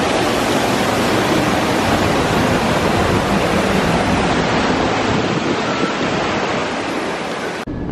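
Steady, loud rush of a waterfall splashing down rockwork, cutting off suddenly just before the end.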